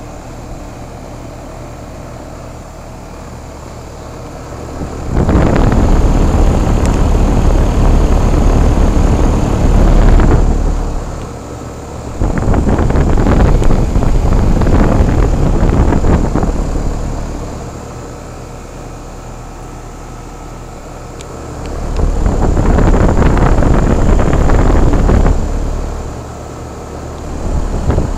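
Carrier central air-conditioner condensing unit running, with a steady low hum from its compressor and condenser fan. Loud rushing wind noise on the microphone comes in three long stretches and once briefly near the end.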